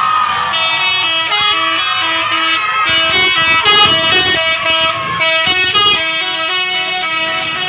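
Bus telolet horn, the multi-tone musical air horn of an Indonesian bus, playing a quick tune of short stepped notes that starts about half a second in and stops about six seconds in.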